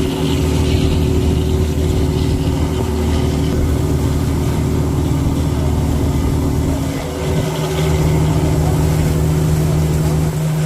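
Boat engine running steadily on the move, over a constant rush of wind and water. About seven seconds in the engine note dips briefly, then settles at a slightly different pitch.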